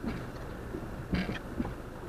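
Car engine idling, heard from inside the cabin as a steady low rumble, with a few brief knocks and clicks about a second in.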